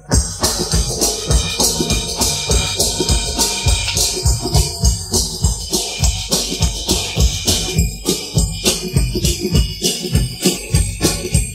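Isolated drum-kit track separated out of a full band recording by a stem-splitting tool, playing a fast steady rock-and-roll beat of about three to four strokes a second under a constant cymbal wash.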